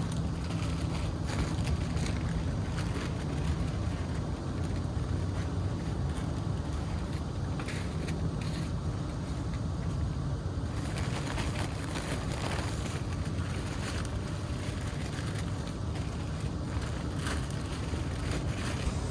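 A plastic bag and snack packets crinkling and rustling on and off as they are handled, over a steady low rumble.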